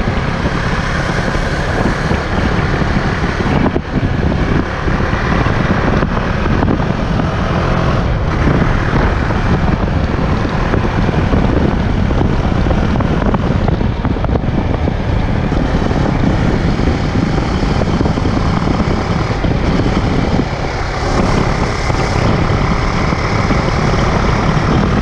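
KTM 390 Duke's single-cylinder engine running steadily while the bike is ridden along a road, mixed with wind rush on the microphone. The engine is new and still being run in. The sound dips briefly twice, about 4 seconds and about 20 seconds in.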